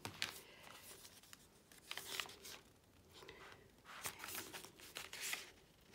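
Paper pages and tags of a handmade journal being turned and handled: faint rustles and soft flicks of paper, a few at a time, with the busiest handling about two seconds in and again from about four to five seconds in.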